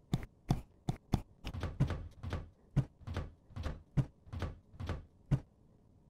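Foley for acorns being shot from a gun: about a dozen sharp thunks in uneven quick succession, each with a short low thud. They stop shortly before the end.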